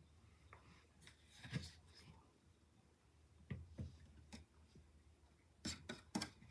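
Faint room tone with a few short, scattered taps and clicks, the last two near the end the loudest.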